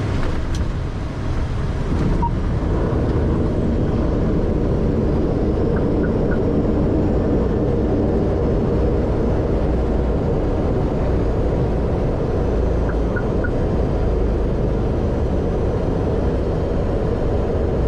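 Airliner touching down and rolling out, a steady heavy rumble of engines and wheels on the runway that grows louder about two seconds in and stays loud.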